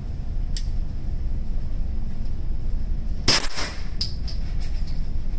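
A single suppressed shot from a Grand Power Stribog SP9 A3 9mm carbine about three seconds in, ringing off the range walls, followed by a few light clinks, over a steady low rumble. The gun is cycling properly after its extractor was replaced.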